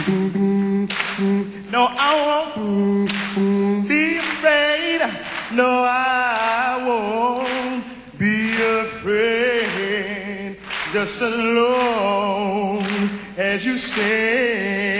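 A man singing a cappella into a stage microphone, with long wavering, vibrato-laden notes over a held low tone and sharp clicks between phrases. The recogniser picked up no words.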